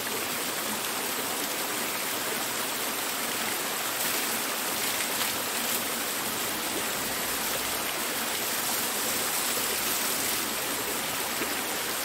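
Small waterfall rushing steadily over rocks, with a stream of water from a pipe spout splashing down into the pool.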